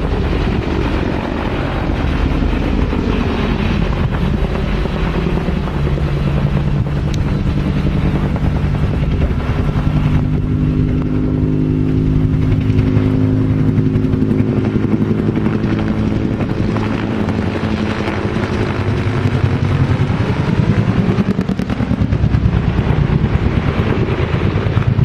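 Helicopter flying low close by, its rotor chopping rapidly and steadily with the engine and rotor pitch bending as it moves past.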